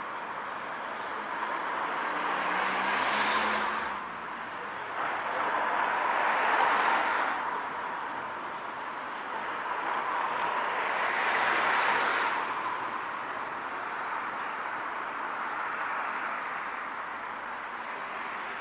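Cars passing by on a town street. Their tyre and engine noise swells and fades three times.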